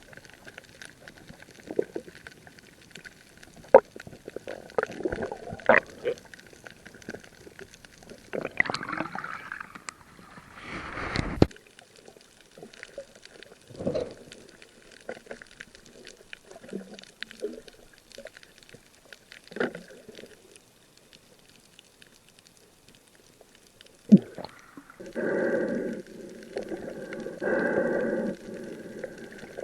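Muffled water sloshing and gurgling, with scattered clicks and knocks. Near the end come two longer, louder bursts of gurgling.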